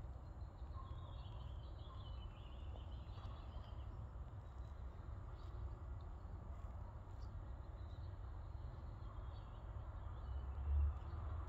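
Outdoor ambience: faint birds chirping in two short spells over a steady low rumble, with one brief low thump near the end.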